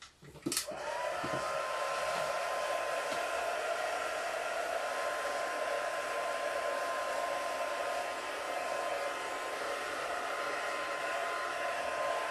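Electric heat gun switched on with a couple of clicks, its fan spinning up and then running steadily with a constant whine and rushing air.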